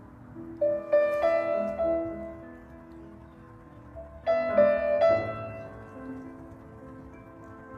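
Background piano music, with chords struck about a second in and again around four to five seconds in, ringing on between them.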